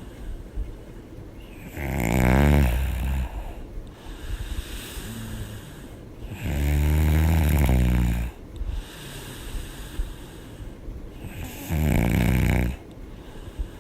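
A woman snoring loudly in her sleep. Three long snores come roughly five seconds apart, with quieter breathing between them.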